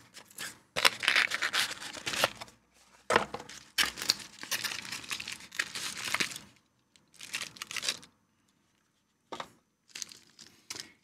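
Small cardboard box being torn open and unpacked by hand, in several bursts of tearing and rustling, then a plastic bag crinkling near the end.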